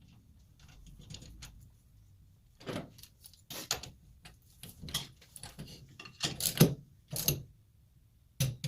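Wrenches and steel jam nuts clinking and rattling against a wheel stud as the double nuts are broken loose and taken off the newly installed stud, in a handful of irregular clatters, the loudest past the middle.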